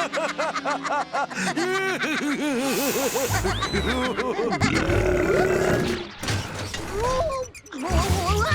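Cartoon sound effects over background music: a fast run of short squeaky pitch glides in the first three seconds, then a low rumble, then rising squeaky glides again near the end.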